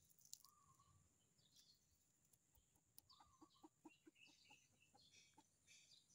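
Faint chicken clucking, with a quick run of short clucks about three seconds in, and small birds chirping faintly.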